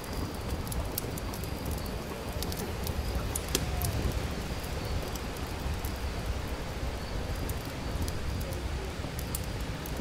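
Wood campfire crackling: irregular sharp pops and snaps over a steady low rumble, with one louder pop about three and a half seconds in.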